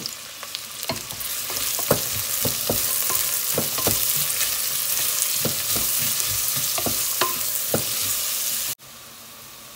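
Diced onions sizzling in hot sesame oil with whole spices in a pressure cooker pot, stirred with a spatula that knocks repeatedly against the pot. Near the end the sizzle drops off sharply to a faint hiss.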